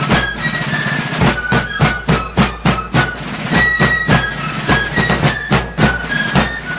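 Music: a high-pitched melody over sharp, rapid drum strokes.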